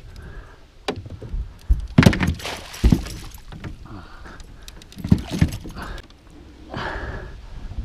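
Landing net's metal frame and handle knocking and clinking against the side of an aluminum boat while a netted muskie is unhooked. There are irregular knocks and rattles, a loud cluster about two seconds in and more around five seconds.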